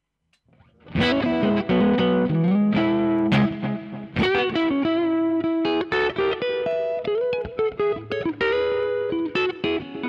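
Fender Telecaster electric guitar played through effects pedals, coming in about a second in with ringing held notes, chords and melodic lines, some notes bent or slid in pitch.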